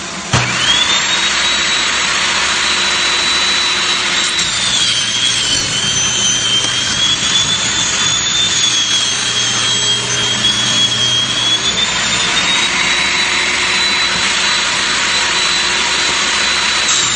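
Table saw switching on about half a second in and running with a loud, high whine. The whine sags lower in pitch for several seconds in the middle while the blade is loaded, ripping a cedar fence picket lengthwise into a one-inch strip, then climbs back up as the cut finishes.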